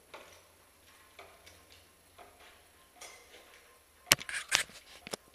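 Faint scattered ticks about once a second, then several sharp, loud clicks and knocks from about four seconds in.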